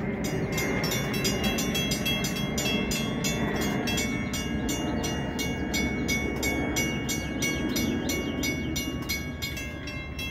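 Railroad level crossing warning bell ringing at a steady pace of about three strikes a second, stopping near the end as the crossing gates come down.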